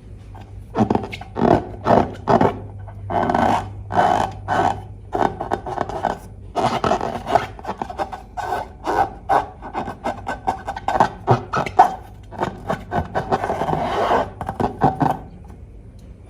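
Slime being mixed and scraped: a run of quick, irregular rubbing and scraping strokes that starts about half a second in and stops about a second before the end.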